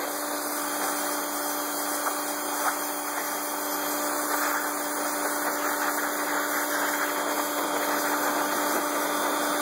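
Pressure washer running with a steady hum under the hiss of its water jet spraying steel tractor frame rails, blasting off the loose rust and paint left by electrolysis.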